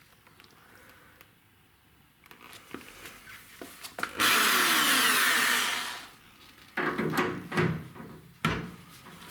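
A power tool runs in one loud burst of under two seconds, then several knocks and clatters follow.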